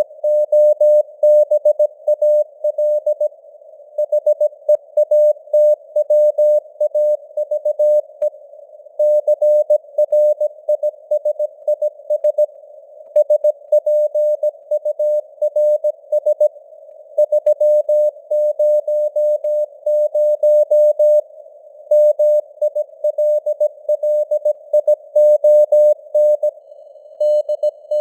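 Morse code sent at 17 words per minute as a single-pitch tone keyed on and off in dots and dashes, with longer pauses between words. A hiss of simulated radio noise surrounds the tone, and the signal strength rises and falls (QSB).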